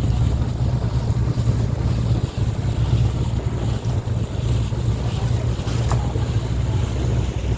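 Motorboat engine running steadily, a deep even drone heard on board, mixed with rushing wind and water noise.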